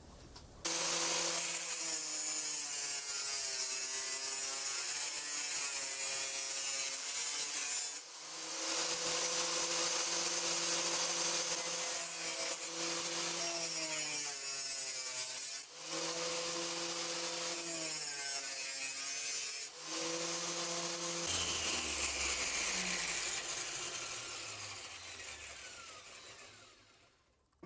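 Small angle grinder running and cutting in a roller carriage stand, its motor pitch sagging and recovering as it is loaded, with three brief breaks. Near the end it is switched off and winds down with a falling whine.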